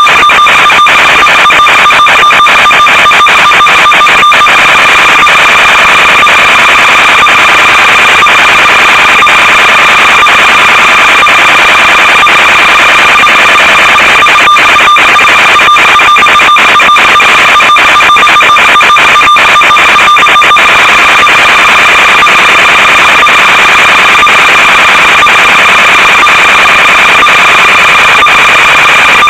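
Harsh, steady electronic buzz at full level, with a constant high-pitched tone and continual crackle, on the audio track of an analog FPV video recording.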